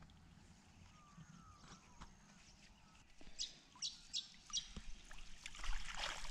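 A cast net hauled up out of shallow pond water, with water splashing and pouring off the mesh near the end, the loudest part. Before that a bird chirps four times in quick succession.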